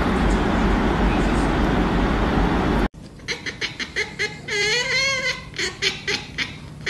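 A steady loud rushing noise that cuts off suddenly about three seconds in. Then a black cat yowls once, a wavering cry of under a second, among short clicking sounds.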